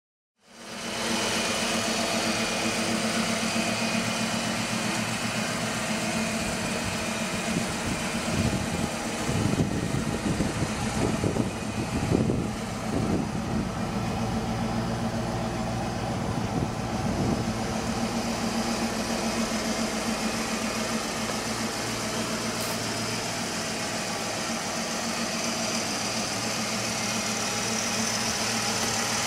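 Ford Mustang GT's 5.0-litre (302 ci) V8 idling steadily, with a few short revs in the middle.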